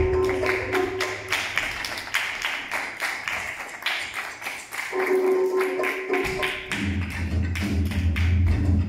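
Rhythmic hand clapping, several claps a second in a steady beat, along with upbeat show music. The music has a held note near the start and again around five seconds in, and a heavy bass line comes in at about seven seconds.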